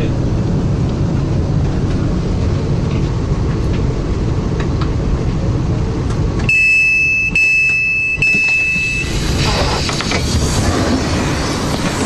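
Train running with a steady low rumble. About six and a half seconds in, the rumble drops away under a high, steady electronic beep, broken twice, for about two and a half seconds; then the running noise comes back.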